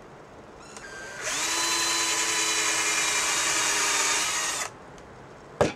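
Cordless drill boring a dowel hole into a wooden frame piece through a doweling jig: the motor spins up about a second in, runs at a steady whine for about three and a half seconds, then stops. A single sharp click comes near the end.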